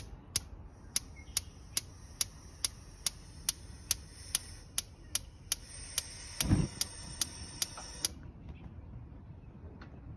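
Gas grill's electronic spark igniter clicking steadily, about two and a half clicks a second, while the searing burner knob is held in to light it; the clicking stops about eight seconds in. A low thump about six and a half seconds in.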